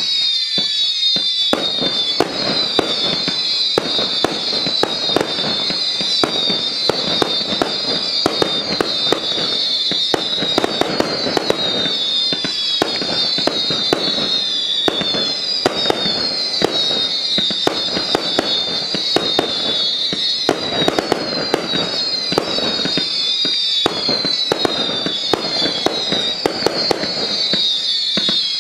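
20 mm whistling firework battery firing shot after shot. Each shot gives a high whistle that falls in pitch, many of them overlapping, over a steady run of sharp pops as the shells launch and burst into colour.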